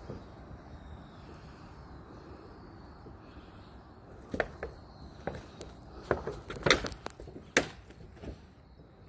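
Faint outdoor background with a faint bird call, then from about four seconds in a run of sharp cracks and snaps, like broken wood and debris being stepped on or moved.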